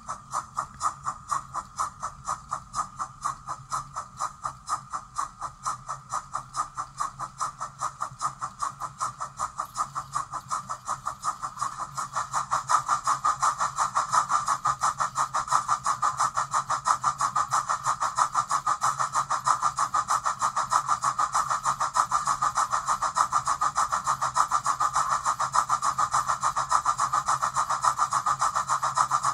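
O gauge Peckett W4 model steam locomotive running on a rolling road, giving an even chuffing beat of about three a second that quickens and gets louder about twelve seconds in.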